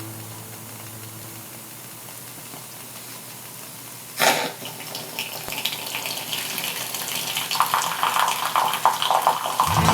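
Water bubbling and spurting in an Esbit stainless steel camping coffee maker as it brews. The sound starts with a sudden burst about four seconds in and grows louder and more sputtering toward the end.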